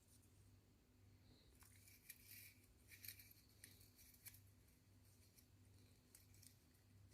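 Near silence with faint handling noise: a few light clicks and scrapes as the hot air handpiece's heater element is slid back into its handle, under a low steady hum.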